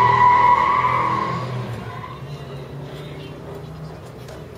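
A car at close range: a loud, steady high-pitched squeal that fades out about two seconds in, over a low engine rumble.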